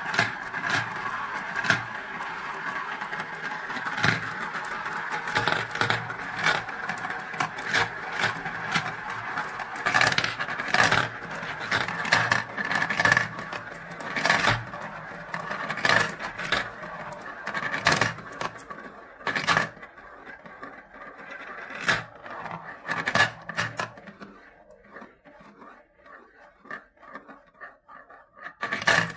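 Glass marbles rolling around the clear plastic funnel bowls of a marble run: a steady rolling whir with many sharp clicks as the marbles strike the plastic and each other. About two-thirds of the way through the rolling thins out, leaving a few scattered faint clicks as the last marble circles.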